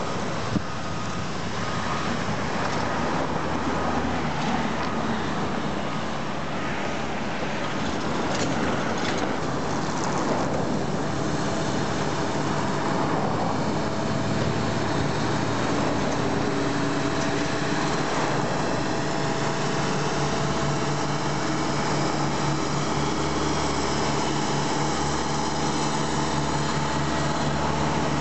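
Heavy road-construction machinery running steadily: a continuous engine drone with a low throb that grows stronger from about twelve seconds in.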